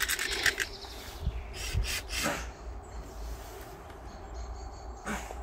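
A few short knocks and scrapes from handling a plywood box during repair work, over a steady low rumble.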